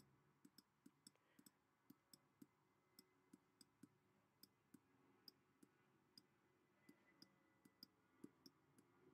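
Faint, irregular clicks, two or three a second, of a stylus tip tapping on a tablet as words are handwritten.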